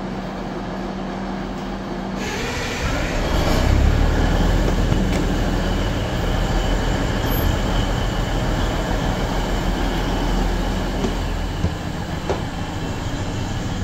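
DB class 612 tilting diesel multiple unit running on the rails. Its engine and wheel rumble swells about two seconds in, and a thin, steady high wheel squeal carries on through most of it.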